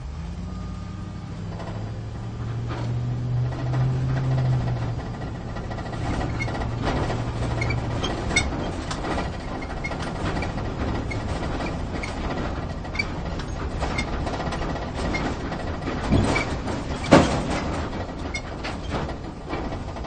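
Inside a vehicle driving off-road: a low engine hum, strongest in the first several seconds and swelling briefly a few seconds in, under constant rattles and jolts of the cabin. Two hard knocks come near the end, about sixteen and seventeen seconds in, the second the loudest sound.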